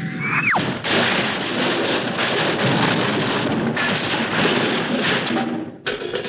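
Cartoon fall effect: a whistling tone swoops sharply down, then a long crash of scrap metal clattering and tumbling for about five seconds as the character lands in the scrap-filled truck, with a few separate hits near the end.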